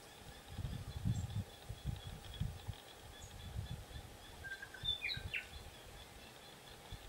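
Outdoor ambience: wind buffeting the microphone in uneven low gusts, with a bird giving a brief run of chirps about five seconds in.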